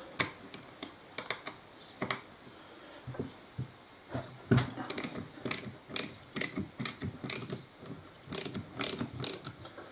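Hand socket ratchet clicking in short strokes as it backs out a tight bolt holding the two halves of a four-piston brake caliper together. The clicks are sparse at first and come more often from about halfway through.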